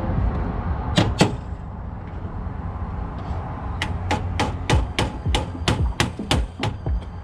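Hammer blows on metal, sharp and ringing: two strikes about a second in, then a steady run of about three strikes a second from about four seconds in. It is hammering to free a completely rusted sex bolt on an old exit device.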